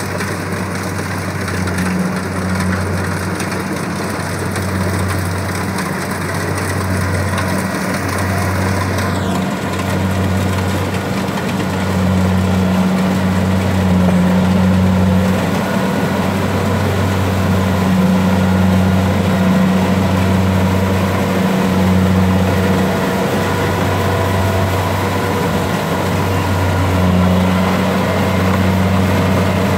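Small rice combine harvester's diesel engine and threshing machinery running steadily as it cuts through the standing rice.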